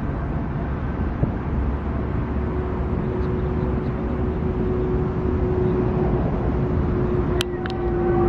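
Steady low outdoor rumble with no clear source. A faint steady hum comes in about two seconds in, and a couple of sharp clicks follow near the end.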